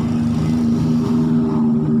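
Motorcycle engine running at a steady speed while riding, a steady hum that holds its pitch.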